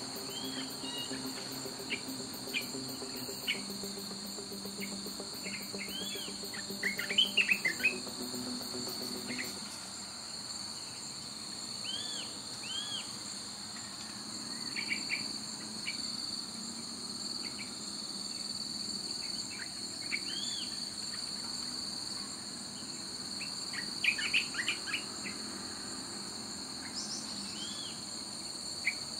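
Steady, high-pitched drone of insects such as crickets or cicadas, with scattered short bird chirps, a burst of them about seven seconds in and again near twenty-four seconds.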